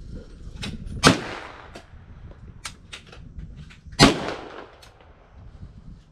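Two gunshots about three seconds apart, each a sharp crack with a short fading tail, and a few faint clicks between them.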